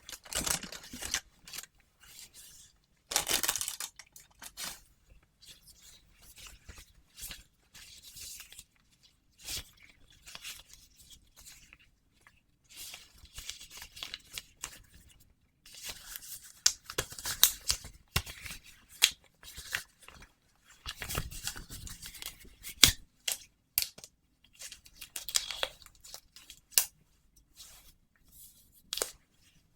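Latex gloves being stretched, rubbed and snapped close to the microphone, in irregular bursts of squeaky, tearing-like rasps with short pauses and a few sharp snaps. The loudest flurries come about halfway through.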